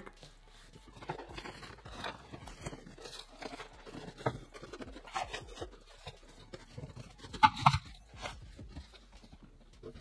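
Cardboard box being lifted off a PC case packed in foam end caps and a plastic bag: cardboard scraping and rustling with scattered small knocks, and two louder sharp noises about seven and a half seconds in.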